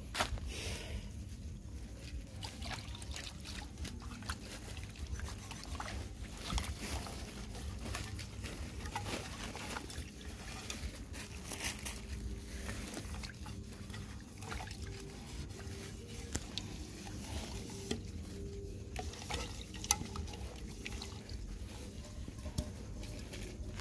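Dogs eating wet food from a bowl: irregular wet lapping and smacking with small clicks, over camera-handling rumble.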